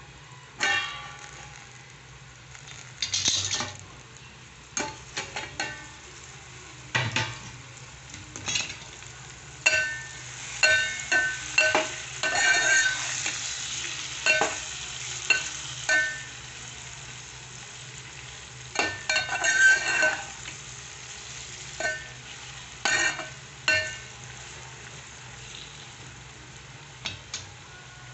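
Metal ladle scraping and clinking against a metal pot while stirring brinjal (eggplant) slices as they fry, a light sizzle underneath. The clinks come irregularly, each with a short ringing note from the pot.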